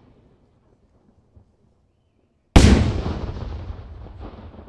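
A single loud firework shell bang a little past halfway, followed by a rumbling echo that fades over about two seconds.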